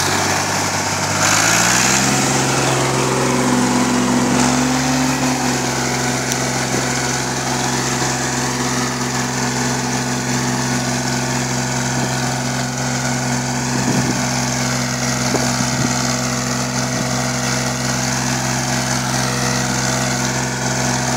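Fiat 540 Special tractor's diesel engine pulling a mounted plough through soil: it revs up over the first couple of seconds, then runs steadily under load. A few light knocks come about two-thirds of the way in.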